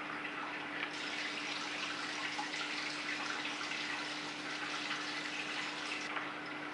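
Aquarium water circulation: a steady trickling, splashing hiss of moving water over a steady low hum from the pump. The hiss grows brighter about a second in and eases back near the end.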